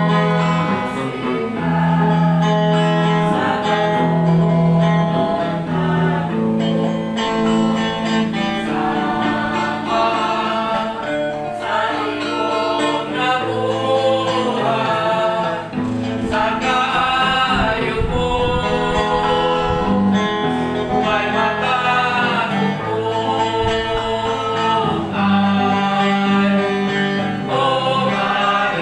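A devotional song: singing with guitar accompaniment, with sustained held notes.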